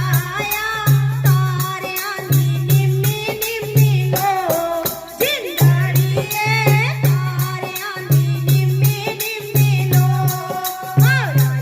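Devotional kirtan music: a bhajan melody over a steady beat of rattling shaker-type percussion, with a low note returning in a repeating pattern.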